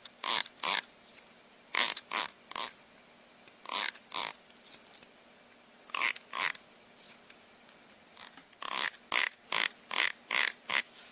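Thumb strumming the teeth of a plastic comb: short raspy zips in twos and threes with pauses, then a quicker run of six near the end.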